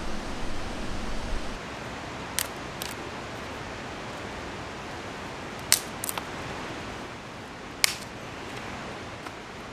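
Steady rushing of river rapids, with a low rumble in the first second and a half and several sharp clicks or knocks scattered through, the loudest two about two-thirds of the way in and near the end.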